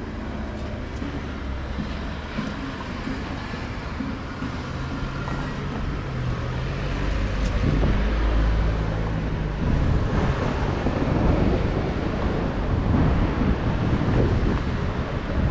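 City street traffic: cars and a scooter running along a boulevard, getting louder about eight seconds in, with some wind on the microphone.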